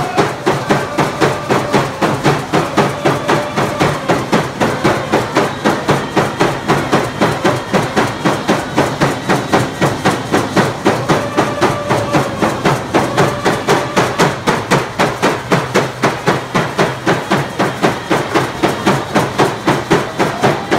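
Hand drums beaten in a fast, steady beat, about three strikes a second, with a group of voices singing a stick-game (slahal) song over them.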